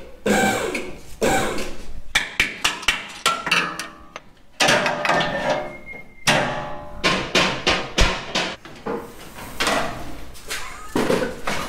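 Irregular sharp metal clanks and knocks from hand work on a truck: wrenches, steel lift arms and body panels striking steel, a few of them ringing briefly.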